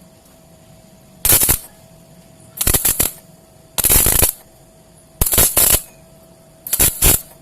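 Stick (arc) welder laying short tack welds on steel: five brief crackling bursts of the arc, a bit over a second apart.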